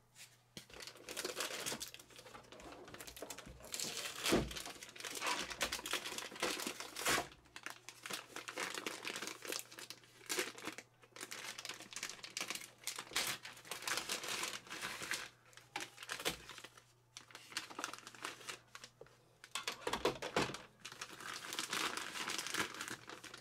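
Plastic packaging bags and foam inserts crinkling and rustling as they are handled and pulled out of the packed unit, in irregular spells with several short pauses.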